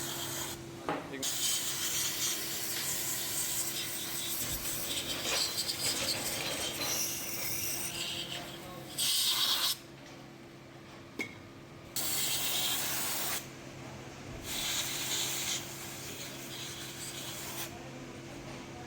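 Aerosol cleaner hissing in several short bursts with rubbing sounds, as a dirty mass air flow sensor is sprayed and cleaned. A faint steady hum runs underneath.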